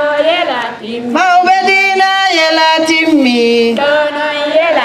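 A woman singing in a chanting style, holding long notes and sliding between pitches, with short breaks between phrases.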